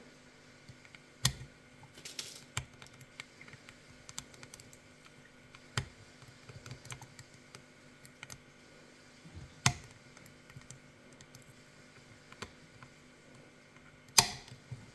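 Lock-picking tools working in a pump lock: irregular small metal clicks and taps, with a few louder clicks scattered through.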